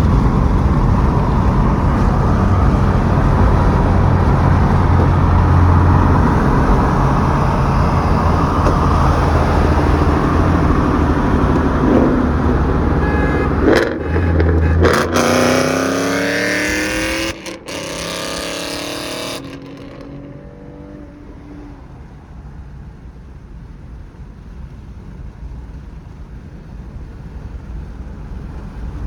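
Ford Mustang engine at full throttle, rising in pitch as it accelerates through the gears, with abrupt edit cuts. About two-thirds of the way in it drops away to quieter, steady road noise.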